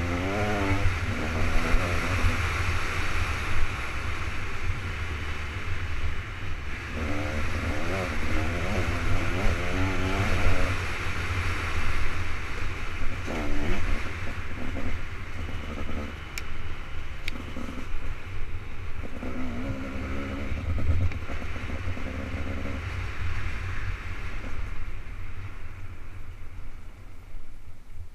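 KTM 200 XC-W single-cylinder two-stroke dirt bike engine under way, its pitch rising and falling several times as the throttle is opened and closed. A heavy low rumble runs underneath throughout.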